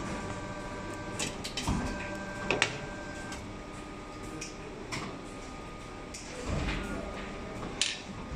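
Vertical plastic injection moulding machine running with a steady hum. Its clamp moves with a low rush about one and a half seconds in and again near the end. Sharp metallic clicks and clinks come as the steel mould and the moulded cables are handled.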